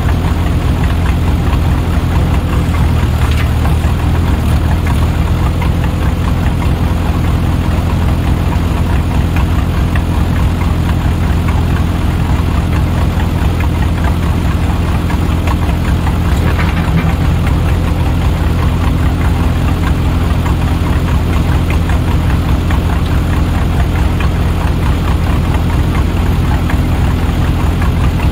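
Diesel engine of heavy earthmoving equipment, a backhoe or the Case 450 dozer, running steadily at an unchanging speed.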